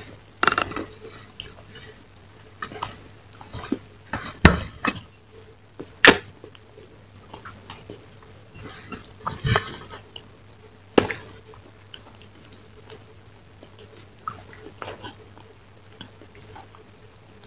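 Chewing and lip smacks close to a clip-on microphone, broken by a handful of sharp clicks a second or more apart, with fingers scraping a steel plate.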